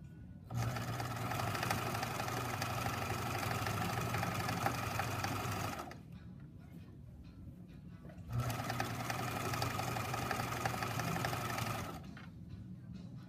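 Bernina electric sewing machine stitching a seam through fabric, running steadily for about five seconds, stopping, then running again for about four seconds.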